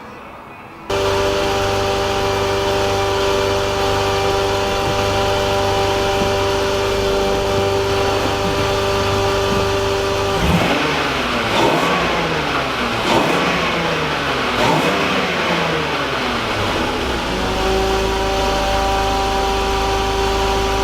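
The E36 318ti's swapped-in M52 2.8-litre straight-six running at a steady engine note. About halfway through, the revs fall and rise several times for a few seconds, then settle back to a steady note.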